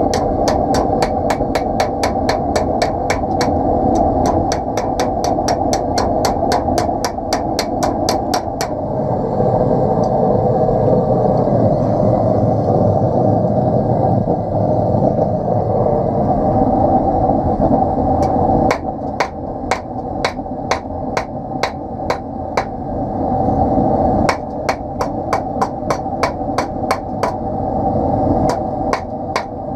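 Hand hammer forging a piece of steel, striking in quick even blows about three a second; the blows stop for several seconds midway, then start again. A steady rushing noise, the forge running, runs underneath.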